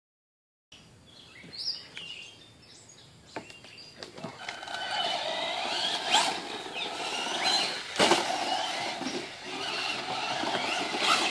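Traxxas Slash 4x4 RC truck on a Castle Mamba Max Pro brushless system driving on dirt, from about four seconds in: a high motor whine rising and falling with the throttle over tyre and gravel noise, with a couple of sharp knocks. Faint bird chirps come before it.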